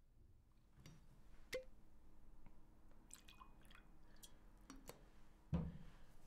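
Faint clinks of glass as a patterned glass decanter is handled and liquor is poured into a small tumbler, then a dull thud about five and a half seconds in as the decanter is set down on the cloth-covered table.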